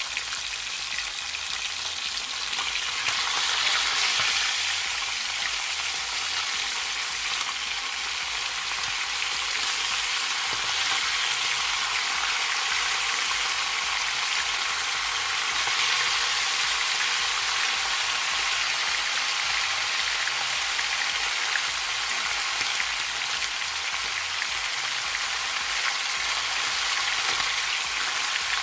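Whole fish frying in hot oil in a cast iron skillet: a steady, dense sizzle.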